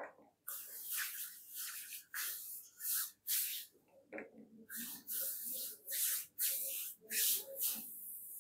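Palms rubbing and stroking a man's bare back during a massage, a series of short brushing swishes about one or two a second.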